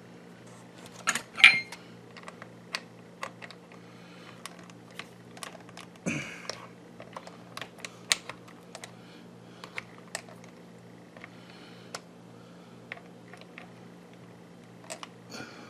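Irregular small plastic clicks and taps as twist-lock bulb sockets are handled and pushed into the back of a Pontiac G6 climate-control panel, the loudest a sharp clatter about a second and a half in and a short scrape about six seconds in. A low steady hum runs underneath.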